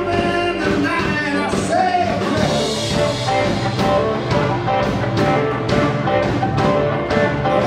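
Live blues-rock band playing, with electric bass and drums. A harmonica is played into the vocal mic in the first couple of seconds, and drum hits come through steadily in the second half.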